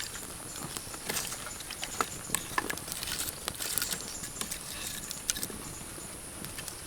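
Scattered light clicks and rustling from things being handled, over a steady faint high insect drone.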